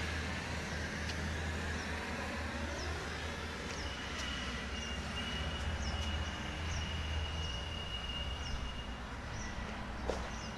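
Steady low drone of an electric air blower keeping an inflatable water slide inflated, with faint high chirps repeating over it.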